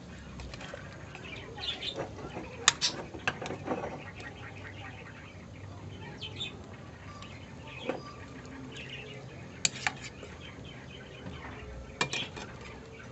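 Metal ladle clinking and knocking against the side of a metal cooking pot while stirring kangkong into the soup. There are several sharp clinks, a cluster about three seconds in and a few more later.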